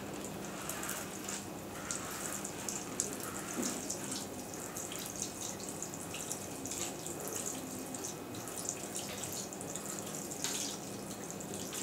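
Water poured from a plastic watering can splashing and pattering onto a handheld OTDR's casing and the plastic tray under it, a steady spattering hiss that starts about half a second in.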